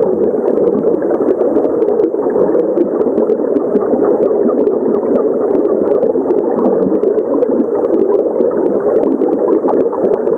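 Running stream water, a steady rushing gurgle, with many small sharp clicks scattered through it.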